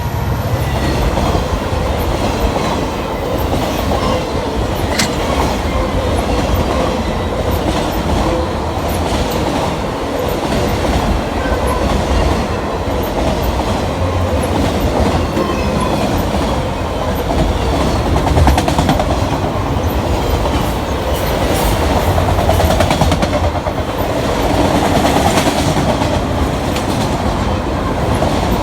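Autorack freight cars of a CN train rolling past steadily, their wheels rumbling and clacking on the rails.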